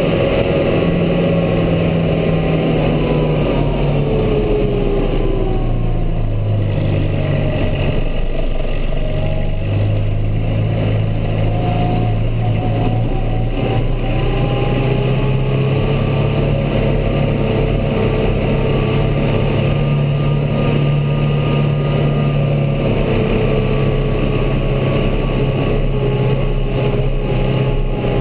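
Kubota M8540 tractor's four-cylinder turbo diesel running steadily under load as it drives a front snowblower, heard from inside the cab. The engine note shifts in pitch a little now and then.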